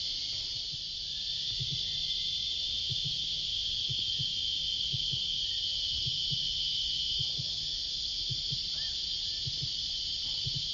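A chorus of cicadas making a steady, unbroken high-pitched drone, with faint low knocks scattered through it.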